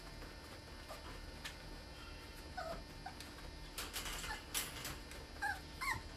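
Border Terrier puppy giving a few faint, short whimpers, with light clicking taps scattered among them, bunched in the second half.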